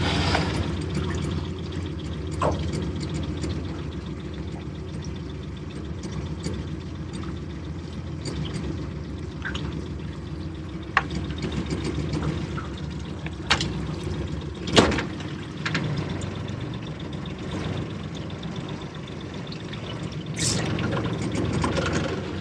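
Water lapping and trickling against a small boat's hull over a steady low hum, with a few sharp knocks; the loudest knock comes about 15 seconds in.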